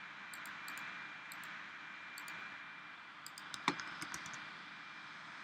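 Light, scattered clicks of a computer mouse and keyboard, with a quick run of taps a little past halfway, the loudest among them, over a steady faint hiss.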